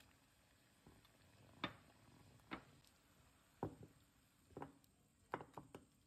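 Light, irregular clicks and knocks, about ten of them, bunched toward the end, from kitchen utensils working at a saucepan of boiling water.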